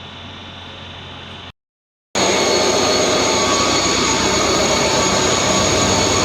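A faint steady hum, a brief dead gap, then a loud train running with a steady mechanical noise and several whining tones, one of them high-pitched.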